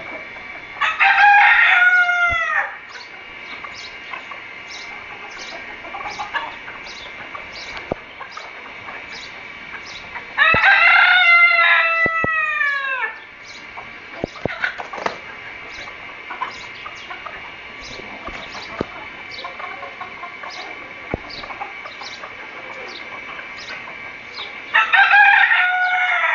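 Rooster crowing three times, each crow about two seconds long and dropping in pitch at the end, with softer chicken calls in between. A short high chirp repeats about twice a second throughout.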